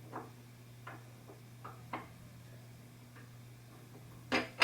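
Light, irregular clicks and taps of statue pieces being handled and fitted together, ending in a louder double knock, over a steady low hum.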